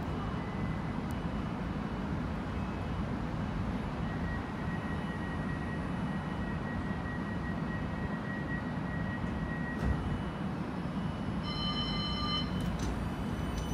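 West Midlands Metro CAF Urbos tram standing at the platform, its onboard equipment giving a steady hum with a faint thin tone. Near the end a short electronic beep sounds, and a thin whine begins as the tram starts to pull away.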